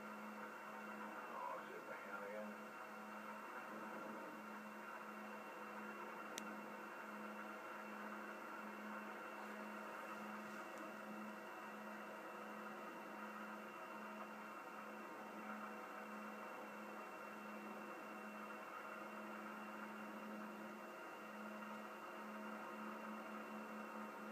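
Steady, muffled drone of a light aircraft engine in flight, a low hum with a slightly pulsing tone and one faint click about six seconds in.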